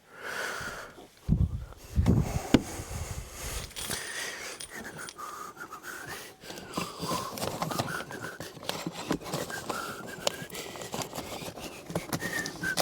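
Panting breaths over scattered knocks and handling clicks, with a couple of low thumps between one and two and a half seconds in.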